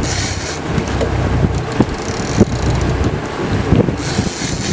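Boat's engine running under way, with wind buffeting the microphone and the wake rushing past.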